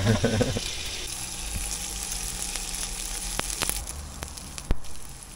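Pork slices sizzling and frying in a pan, with a few sharp clicks; the sizzle drops away about four seconds in.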